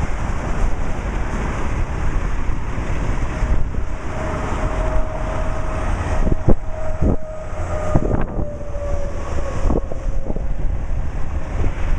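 Strong wind buffeting the microphone over highway traffic noise. A faint tone falls slightly in pitch in the middle, as a passing vehicle's does, and a few sharp knocks come in the second half.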